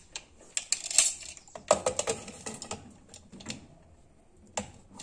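Aluminium pressure cooker lid being fitted and closed: a series of short metal clicks, knocks and scrapes.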